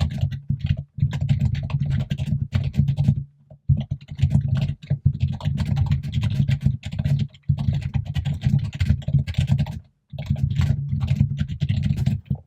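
Fast, loud typing on a computer keyboard, in runs of rapid keystrokes with a heavy low thud to each key. It stops briefly about four times.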